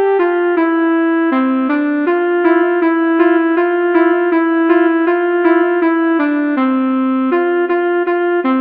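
Pianika (melodica) playing a telolet bus-horn melody: a quick run of sustained notes, the pitch changing every half second or so, each note starting with a faint click.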